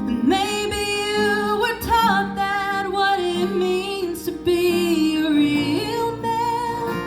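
A woman singing long held notes with slides between them, without clear words, over strummed acoustic guitar.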